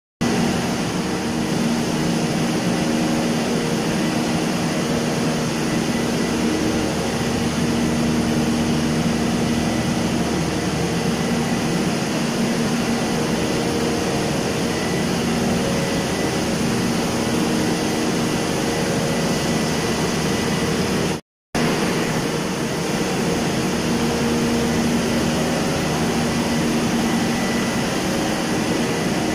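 Cummins 1250 kVA diesel generator set running steadily on its first test run: a loud, even engine drone with a steady low hum and a faint high whine. The sound cuts out for a split second about two-thirds of the way through.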